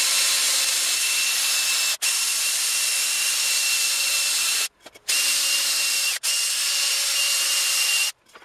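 Cordless drill spinning a Roloc abrasive pad (a heavy Scotch-Brite-type disc) against the rusty machined face of a cast-iron brake drum hub, scrubbing the surface clean. It runs at a steady high whine with an abrasive hiss, stopping briefly three times and cutting off near the end.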